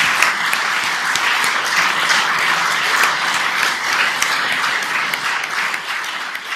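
Audience applauding in a lecture hall, a dense, steady clapping that begins to thin out near the end.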